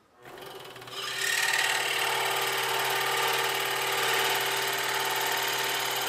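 Scroll saw running and cutting an inside opening in a pine board, started from a drilled hole. It comes up over the first second, then runs steadily as the board is fed into the blade.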